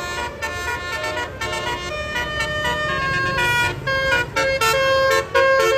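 Telolet bus horn: a multi-tone musical air horn playing a quick tune of short and held notes, several notes at once at times, over a low rumble. It gets louder toward the end.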